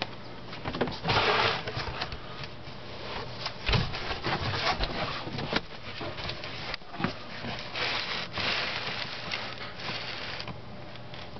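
Handling noise as the camera is carried and moved: irregular rustling and rubbing with scattered knocks and clicks, louder bursts of rustling about a second in and again around eight seconds in.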